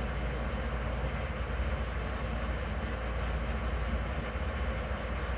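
Steady low-pitched noise, strongest in the deep bass, with an even hiss above it and no rhythm or distinct tone.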